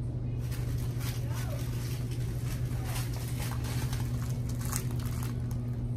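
Steady low hum with scattered clicks, rattles and rustling as frozen-food packages are handled at an open glass-door freezer case; faint voices behind.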